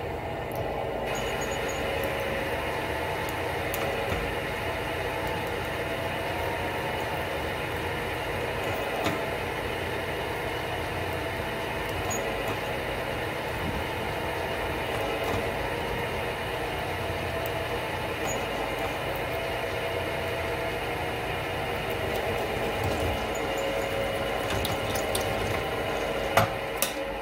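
Drill press running, its twist drill cutting into a metal part clamped in a machine vise: a steady motor hum and cutting noise, fuller from about a second in. There is a sharp click near the end.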